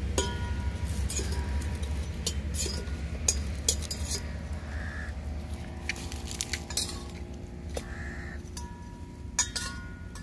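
Metal utensil clinking against a metal pan of frying bread: scattered sharp clinks, some leaving a brief metallic ring. A crow caws twice, about halfway through and near the end, over a steady low rumble.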